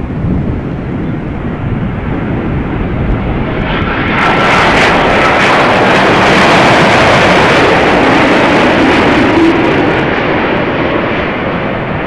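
Boeing 787-8 airliner with GEnx-1B engines on final approach passing low overhead: its jet noise swells about four seconds in, stays loud for several seconds, then fades near the end.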